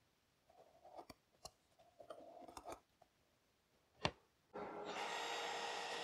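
Plastic pipe fittings rubbing and clicking as they are pushed into place, a sharp click about four seconds in, then a cordless drill starting and running steadily, driving a screw into the 3D-printed pipe adapter.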